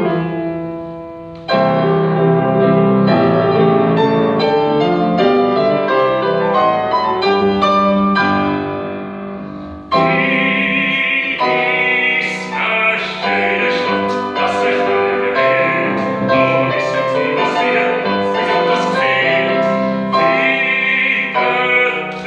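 A grand piano plays an introduction, and about ten seconds in a classically trained bass voice starts singing a Viennese song over the piano accompaniment.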